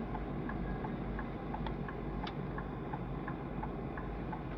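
Steady in-cab vehicle rumble with a regular ticking, about three ticks a second.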